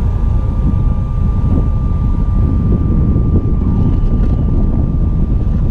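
Wind buffeting the microphone of a pole-mounted camera on a moving car: a steady low rumble mixed with road noise. A faint steady high tone runs underneath.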